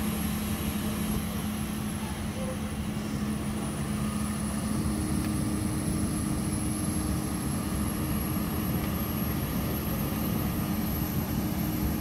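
Vehicle engine running steadily, with an even noise and a low steady hum; a second, slightly higher hum joins about five seconds in.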